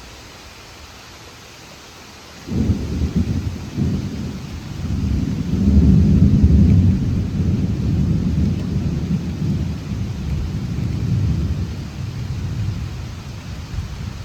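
Thunderclap over steady rain: a sudden crack about two seconds in, then a long, deep rumble that swells again and slowly fades.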